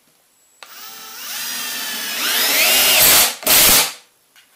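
Cordless drill-driver driving a Reisser Cutter screw into a softwood decking board. The motor whine starts about half a second in and climbs in pitch as the screw goes in, cuts out briefly near the end, and then a second short burst sets the screw.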